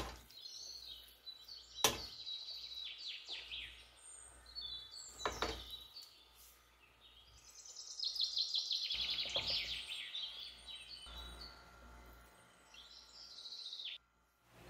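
Birds singing and chirping, with quick trilled runs of high notes. Two sharp knocks come about two and five seconds in, and the sound cuts off abruptly near the end.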